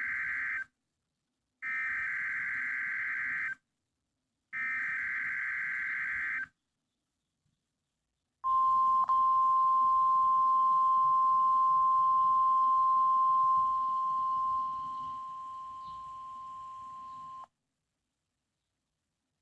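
NOAA Weather Radio Emergency Alert System data: three roughly two-second bursts of the screeching digital SAME header, the first already under way, then after a short gap the steady 1050 Hz warning alarm tone for about nine seconds, dropping in level partway through before cutting off. This is the start of a Required Weekly Test.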